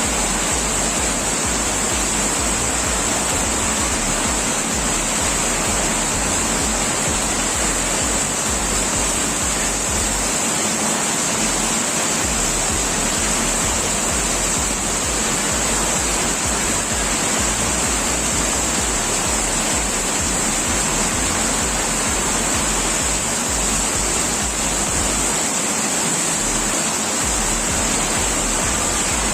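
Heavy rain and wind: a loud, steady, even hiss with an uneven low rumble underneath.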